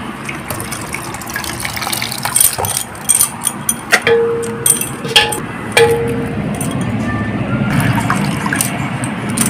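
Hands swishing and squeezing chopped mushrooms in a metal pot of water: water sloshing and dripping, with a few sharp clinks against the pot.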